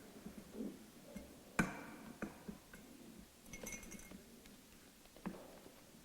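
Scattered light knocks and clicks, the loudest about a second and a half in, with a short ringing clink a little after three and a half seconds.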